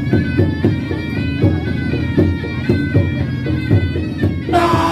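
Patrol sahur music: a wind instrument plays long held notes over a steady percussion beat, and a voice comes in near the end.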